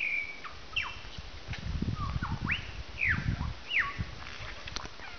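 Superb lyrebird singing: a run of loud, clear whistled notes that sweep down and up in pitch. Two stretches of low, noisy sound come in the middle, a little under two seconds and about three seconds in.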